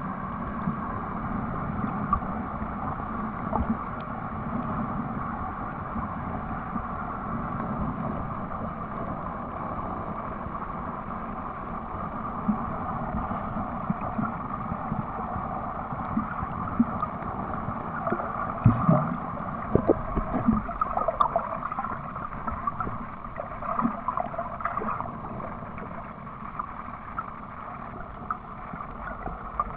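Underwater ambience picked up by a submerged camera: a steady, muffled rush of water with scattered small clicks, and a brief gurgle about two-thirds of the way in.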